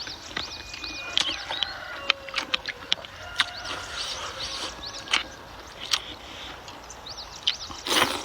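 A person eating noodles and pork, close to the microphone: wet mouth clicks and smacks while chewing, and a short slurp near the end.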